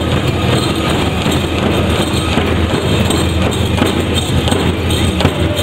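Powwow drum: a large drum struck in a steady beat for a hoop dance, booming and echoing through a gymnasium hall.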